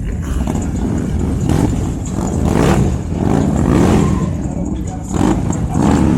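Loud vehicle engines running and revving as vehicles pull up, the pitch rising and falling several times.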